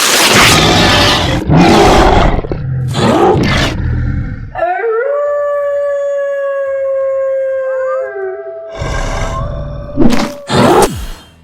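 Loud rough growling bursts, then a long howl that glides up and holds one steady note for about three seconds, followed by a second, slightly higher howl and two more rough bursts near the end.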